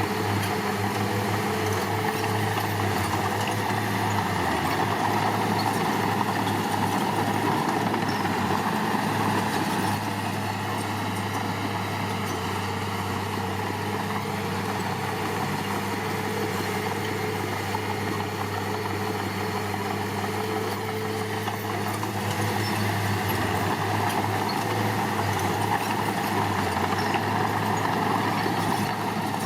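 Diesel engine of heavy earthmoving machinery running steadily, with a low, even engine hum and no sharp knocks or revving.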